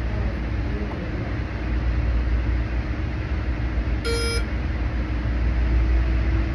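Shot timer app's start beep, one short electronic tone about four seconds in, the signal to draw and fire. It sounds over a steady low rumble.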